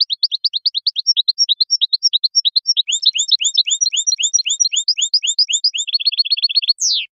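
European goldfinch song: one long phrase of quick repeated chirps, about six or seven a second, turning about halfway into paired high-and-low notes, then a fast trill and a single falling note at the end.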